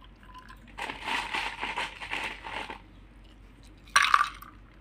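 Ice cubes being put into a stemmed glass of blended mint drink: a rough rattling of ice for about two seconds, then a single sharp clink about four seconds in.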